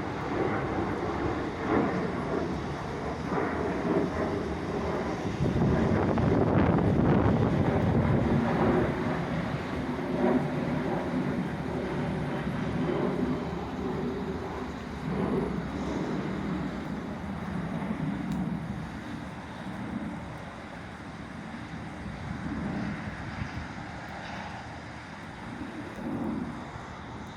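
Jet airliner's engines rumbling as it departs, loudest several seconds in, then gradually fading away.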